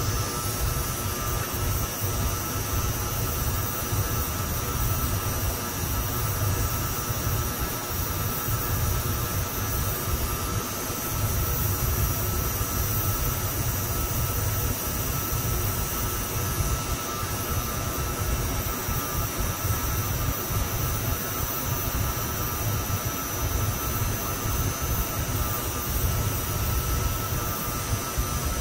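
Brazing torch flame burning steadily with a low rumble while it heats a copper refrigerant line and brass ball valve joint. A constant high-pitched whine from nearby equipment runs underneath.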